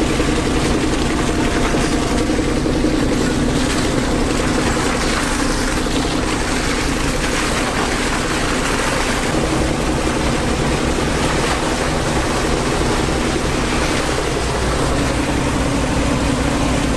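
Fish pump running steadily, a constant machine drone over a rushing hiss as anchovies and water gush out of its discharge hose.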